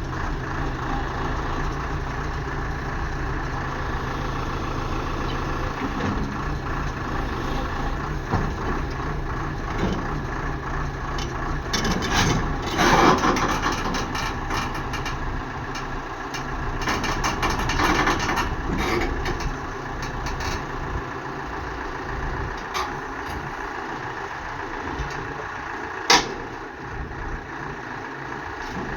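Hyundai 140LC-9 excavator's diesel engine running steadily while working, with two louder stretches of working noise near the middle and a single sharp knock late on.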